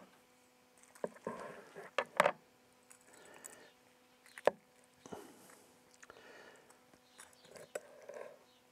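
A large chef's knife carving a spit-roasted chicken on a wooden cutting board: short crackles of crisp skin and meat tearing apart, and a few sharp clicks of the knife. The loudest clicks come about two seconds in and again about halfway.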